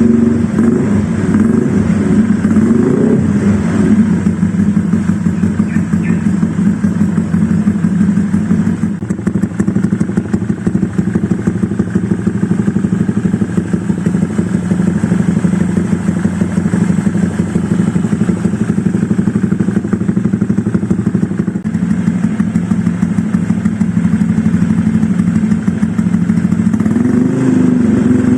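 Honda Vario 125 scooter's single-cylinder engine idling through an ABF Racing SPR aftermarket silencer, with a light throttle blip about three seconds in and another near the end. The exhaust note is somewhat calm, not very aggressive.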